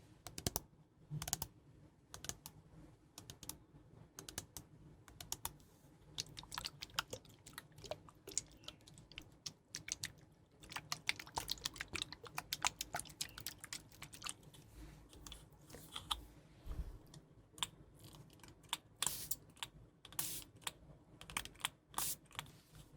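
ASMR handling of makeup cases and tools close to the microphone: crisp, irregular taps and clicks in quick clusters, with short pauses between them.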